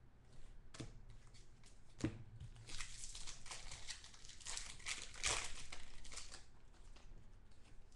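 Foil wrapper of a Bowman football card pack being torn open and crumpled by hand: a couple of sharp clicks, then several seconds of dense crinkling that dies down about six and a half seconds in.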